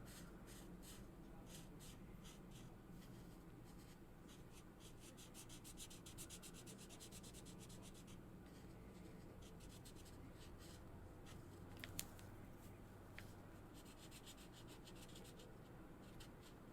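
Felt-tip marker scratching across paper in quick back-and-forth colouring strokes, coming in runs of rapid strokes, with two sharp clicks a little past the middle.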